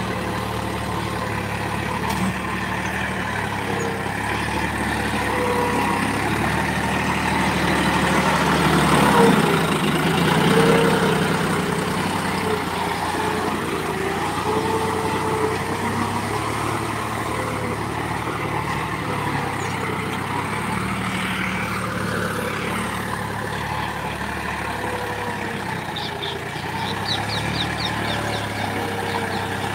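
John Deere tractor's diesel engine running steadily under load as it pulls a cultivator through the soil. It grows louder about nine to eleven seconds in as the tractor passes close.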